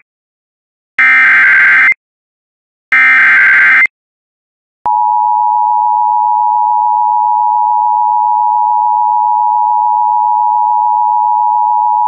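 Emergency weather alert broadcast: two of the harsh, screechy SAME digital header bursts, each about a second long and two seconds apart, then after a short gap a loud, steady alert tone starting about five seconds in, the warning alarm that comes before a severe thunderstorm warning is read.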